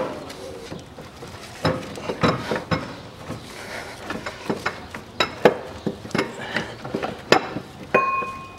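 Irregular metallic clinks and knocks as the air-conditioning compressor is worked by hand out of a car's engine bay, with a metal part ringing briefly near the end.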